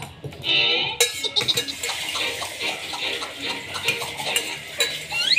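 A metal spoon clinks and scrapes against a stainless steel bowl of rice, with close-up eating sounds.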